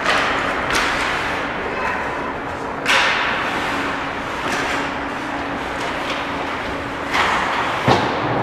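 Ice hockey play on a rink: skates carving and scraping on the ice, with a sharp scraping hiss about three seconds in and quick clacks of sticks and puck, then a sharp hit near the end, over a steady arena hum.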